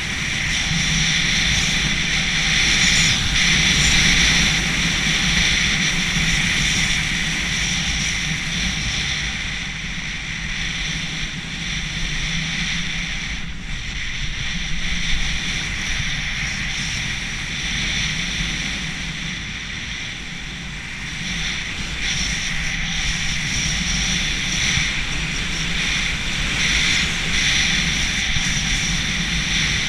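Wind rushing over an action camera's microphone and skis running over groomed snow on a downhill run. The steady roar and hiss ease a little around ten and twenty seconds in.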